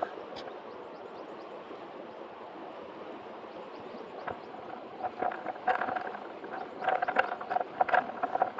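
Steady rush of a mountain stream, with a run of irregular, louder clattering sounds over the last three seconds or so.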